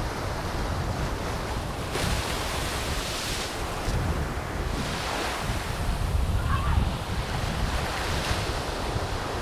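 Surf washing onto a beach, swelling and falling back every few seconds, with wind buffeting the microphone in a low gusty rumble.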